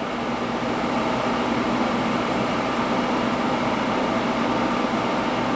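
HOSTON hydraulic press brake running with a steady machine hum, rising a little about half a second in as the machine moves to the next program step.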